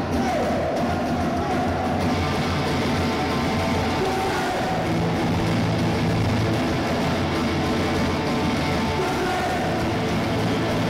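Oi! punk band playing live through a PA: electric guitars, bass and drum kit, loud and dense throughout.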